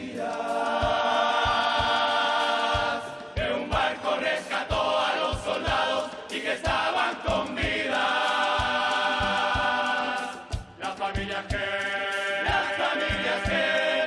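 Carnival murga choir singing in unison over a steady drum beat of about two strokes a second, holding two long chords.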